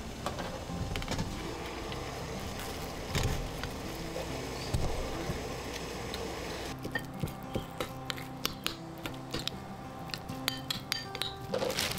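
Metal spoon clinking and scraping against a ceramic bowl as it breaks up steamed egg, a quick irregular run of sharp clicks in the second half, over background music. A couple of single knocks in the first half.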